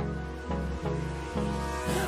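Background pop music: an instrumental passage with sustained synth chords and a steady beat of about two pulses a second, just before the vocals come in.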